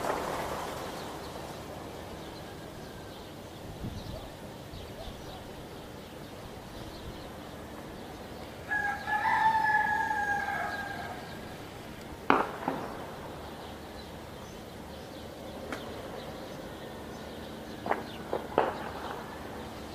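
A rooster crows once, a call of about two seconds starting about nine seconds in. Gunshots from street clashes crack through: one sharp, loud shot about twelve seconds in and a quick cluster of shots near the end.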